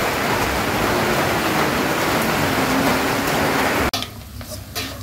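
Steady rain falling on standing floodwater. About four seconds in it cuts off abruptly to the much quieter sizzle of an egg frying in a wok, with a few clicks of a spatula.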